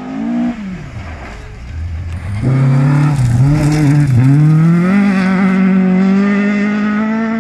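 Ford Escort Mk2 rally car's engine backing off as it approaches, then revving hard and unevenly as it slides sideways through a gravel corner, and climbing steadily in pitch as it accelerates away.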